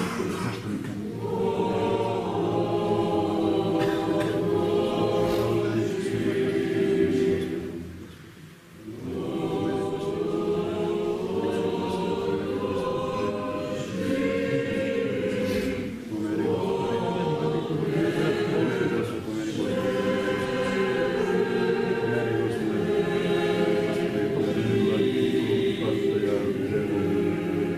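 Church choir singing an Orthodox liturgical chant without instruments, in long sustained phrases with a short breath break about eight seconds in and another near sixteen seconds.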